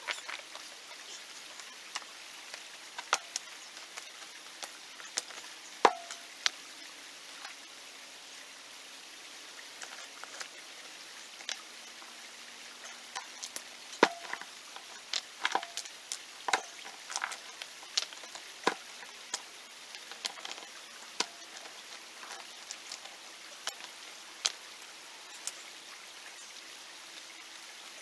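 Rocks being set by hand, knocking against one another in irregular sharp clacks, a few with a short ringing tone.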